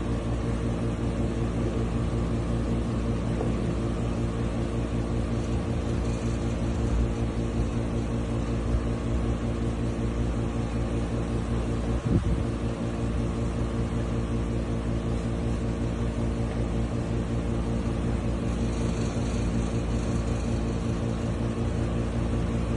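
A steady mechanical hum with many fixed tones, unchanging throughout, and a single short knock about halfway through.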